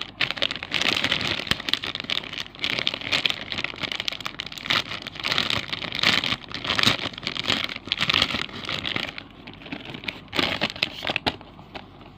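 Plastic packaging crinkling and rustling as a squishy is unwrapped from its bag, in dense crackly handling bursts that ease off about nine seconds in, with one more short burst near the end.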